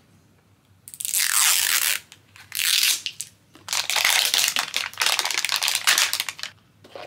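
Plastic packaging crinkling and tearing as it is worked open by hand, in three bouts of rustling with short pauses between.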